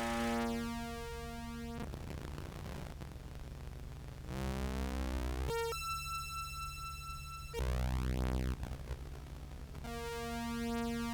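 Contrabass clarinet notes pitch-shifted up by an EHX POG2 octave pedal and fed to a Meris Enzo synth pedal, giving electronic synth tones that pulse and break up, with a steady high tone in the middle and a pitch sweep after it. The low notes keep a distortion that the Enzo cannot track cleanly.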